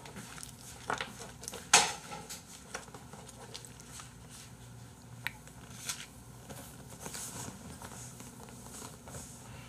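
Scattered clicks, clacks and rustles of plastic takeout containers, wrappers and chopsticks being handled on a table, the loudest a sharp clack just under two seconds in.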